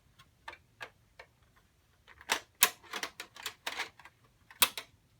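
Clicks and snaps of an Xbox 360's plastic casing being handled and a part unclipped. A few light clicks come first, then a busier run of sharper snaps from about two seconds in, the loudest near the end.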